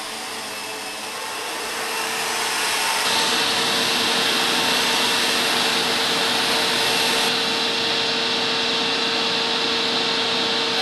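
Vacuum cleaner motor running with a steady whine, getting louder about two to three seconds in and then holding.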